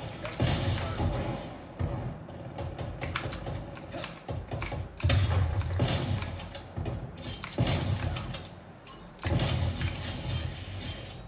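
Shooter video game sound effects: a busy run of sharp clicks and knocks over repeated low rumbling bursts.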